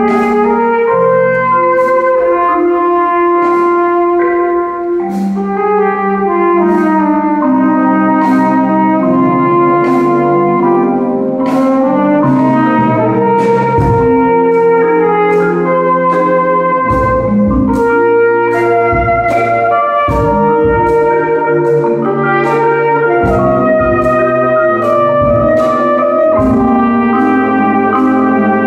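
Flugelhorn playing a slow ballad melody over a jazz band's horns, with a light, steady beat struck about once a second.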